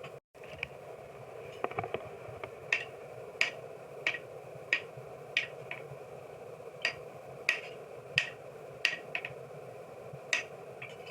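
Hammer blows on hot steel over an anvil, a sharp ringing strike about every two-thirds of a second, sometimes a quick double blow, over a steady low hum.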